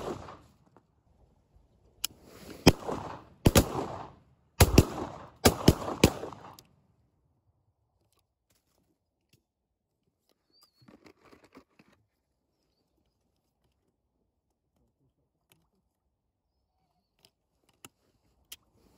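A quick volley of shotgun shots, about six in four seconds, each bang followed by a rolling echo.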